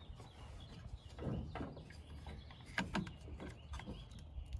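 A few faint clicks and scrapes of a plastic tailgate handle and its metal lock cylinder being handled, as the lock is worked past its retaining clip.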